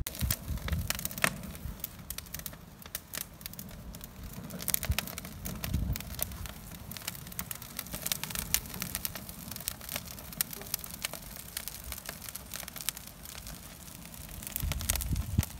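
Burning avocado tree branches and leaves crackling in a barrel grill's firebox: a fast, irregular run of sharp pops and snaps, with some low rumbles now and then.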